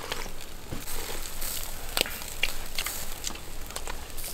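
A person eating: slurping hot lamb soup from a bowl and chewing, with scattered light clicks and crackles.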